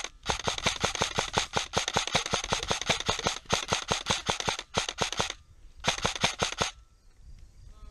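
Airsoft electric rifle, a Krytac SPR, firing long strings of rapid shots at about ten a second, with a few short breaks and stopping shortly before the end.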